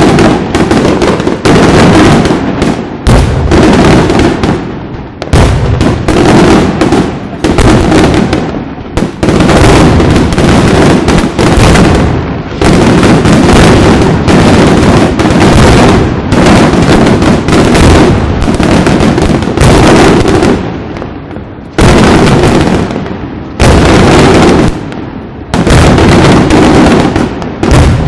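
Fireworks shells bursting in a near-continuous barrage of booms and crackles, typical of a display's finale, with only a few brief lulls. It is loud enough to hit the ceiling of the phone's microphone.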